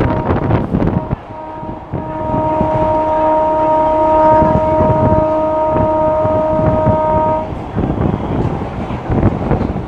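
Electric multiple unit train's horn sounding one long steady blast of about six seconds, starting about a second in, over the wind and rushing running noise of the train at speed.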